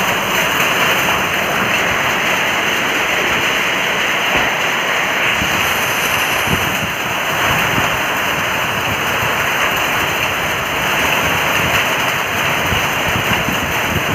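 Rain pouring down: a loud, steady hiss.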